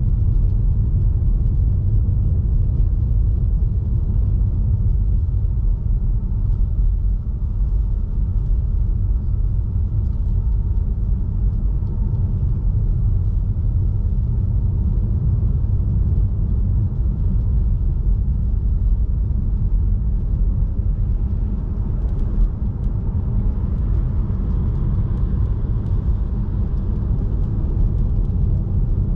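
Steady low rumble of tyre and road noise from an electric Tesla Model 3 driving at around highway speed on a snowy road, with no engine sound.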